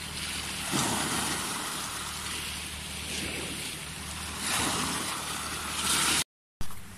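Small sea waves washing in over the rocks at the water's edge, swelling louder three times. The sound cuts out briefly near the end.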